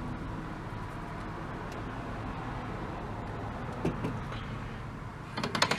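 Tube tester being worked: a steady low hum under a few faint clicks about four seconds in, then a quick run of sharp clicks near the end as its knobs and switches are set for the test.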